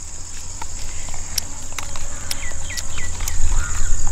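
Steady high-pitched drone of insects in the grass, over a low rumble that grows louder in the second half. A few short chirping calls come about two and a half seconds in, with another call just before the end.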